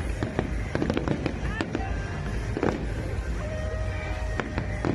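Fireworks going off in a display: a quick, irregular series of bangs and crackles over a steady low rumble. Music and voices are mixed in.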